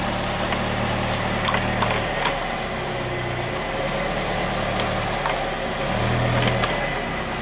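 Car running: a steady noise with a low hum that swells and fades several times, and a few faint clicks.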